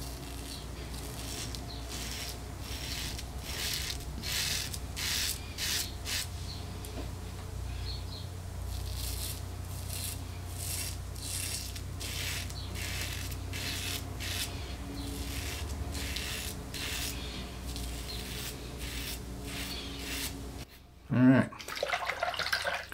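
Rockwell 6C double-edge safety razor on its level-six plate scraping through a week's stubble on the neck: a run of short, scratchy strokes, about one to two a second.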